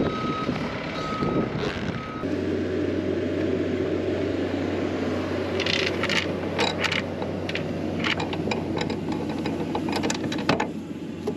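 A vehicle backup alarm beeping about once every seven tenths of a second over a running engine, stopping about two seconds in. The engine then hums steadily while a string of sharp clicks and metal rattles comes from about halfway on.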